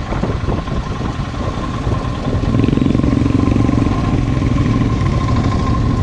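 Royal Enfield Himalayan's 411 cc single-cylinder engine running under way, heard from the rider's own bike; it grows louder a little over two seconds in and holds there.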